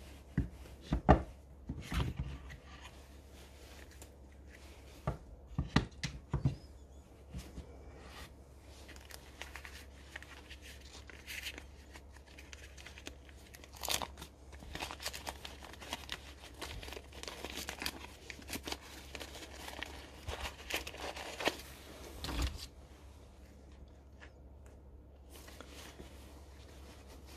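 Small steel angle blocks knocking sharply a few times as they are handled and set down, then brown paper wrapping crinkling and rustling for about ten seconds as a block is unwrapped, with one more knock near the end of it.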